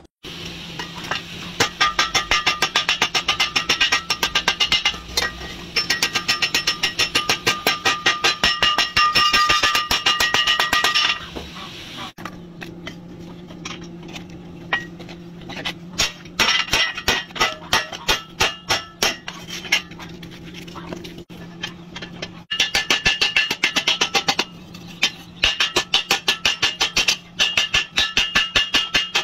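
Hammers striking steel woks during hand forging: a quick run of ringing metallic clangs, broken off and resumed twice.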